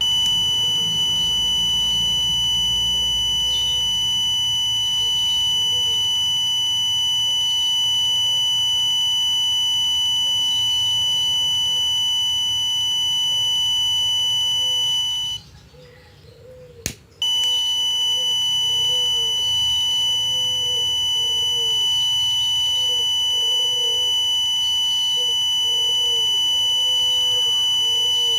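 Electronic buzzer of a thermistor fire-alarm circuit sounding its alarm as one continuous high-pitched tone. It cuts out about fifteen seconds in and starts again just after a sharp click, nearly two seconds later.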